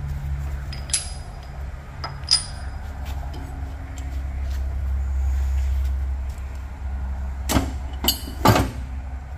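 Steel bending die and centre piece of a Nargesa CC90 tube bender being removed and stowed: a couple of light ringing metal clinks in the first few seconds, then two loud metal clanks about a second apart near the end, over a steady low hum.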